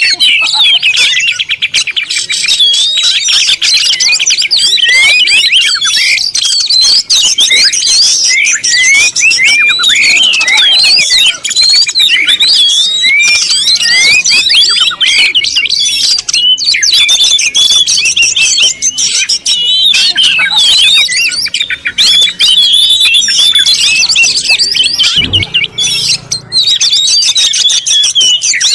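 Many small birds chirping and twittering at once in a dense, overlapping chatter of short high chirps, with a brief low thump near the end.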